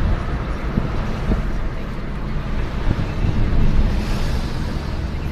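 Road and engine noise inside a moving car's cabin: a steady low rumble with a haze of tyre and wind hiss, the hiss rising briefly about four seconds in.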